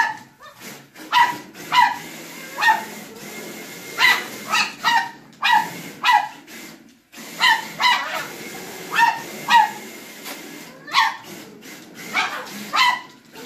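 A dog barking over and over at a radio-controlled car: about fifteen short, sharp barks in irregular clusters, some in quick twos and threes. Under the barks runs the faint steady whir of the RC car's electric motor and tyres on the floor.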